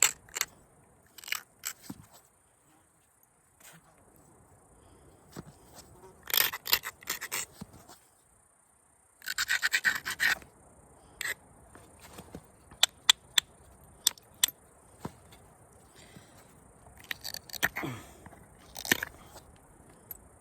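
Flintknapping: the stone's edge is scraped in short rasping strokes to grind and prepare a striking platform, with sharp clicks of stone being tapped.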